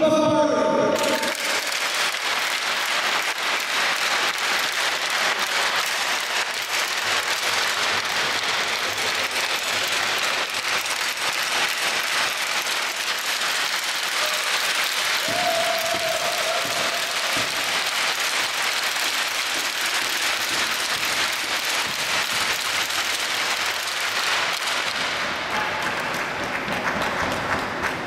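Audience applauding steadily for over twenty seconds, thinning out near the end.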